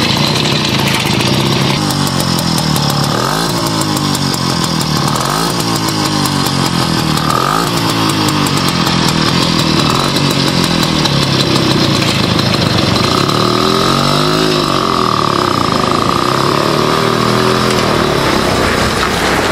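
Bastert FM100 light motorcycle's small two-stroke engine running under way, its pitch rising and falling several times as it revs up and drops back.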